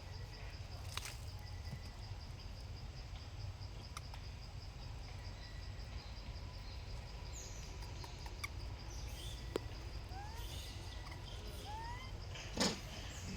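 Outdoor ambience: a steady low hum under a fast, even pulsing high tone like an insect, with a few short rising chirps about three-quarters of the way through and one loud, short animal call near the end.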